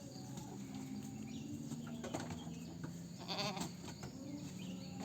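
Goat bleating once, a wavering, quivering call about three seconds in, with a fainter bleat shortly before it.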